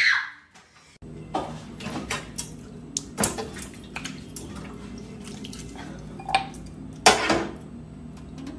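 Clinks and knocks of a glass bowl and small hard objects being picked up and set down on a kitchen counter, scattered and irregular, over a faint steady low hum.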